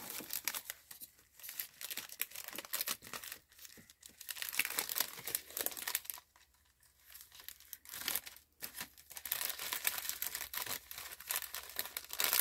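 Clear cellophane bag crinkling and rustling in irregular bursts as a paper craft piece is slid into it, with a short quiet pause about six seconds in.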